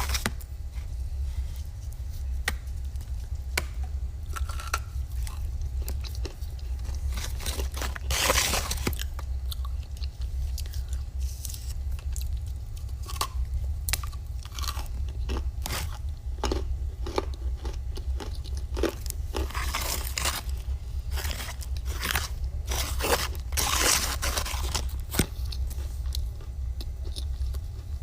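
Close-up crunching and chewing of dry eating clay, with bites cracking off between steady chews and louder crunchy bites near 8 s, 20 s and 24 s. A steady low hum runs underneath.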